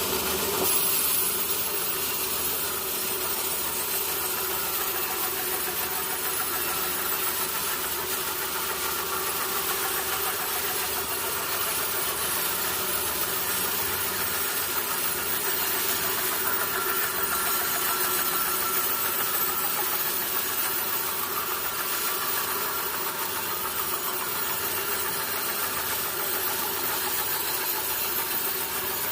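Sawmill machinery running steadily, a continuous motor and saw noise with no pauses.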